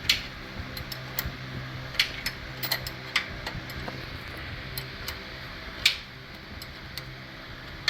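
Irregular metallic clicks and clinks of a 15 mm hand wrench being swung and refitted on a bolt, tightening the last lower control arm bolt, over the steady hum of a fan.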